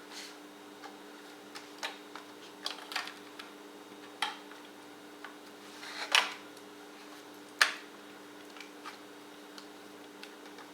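Scattered clicks and knocks, about a dozen at uneven intervals, from the plastic and metal parts of a dishwasher control panel being handled and fitted as it is reassembled. The loudest knocks come a little after six seconds and near seven and a half seconds. A steady low hum runs underneath.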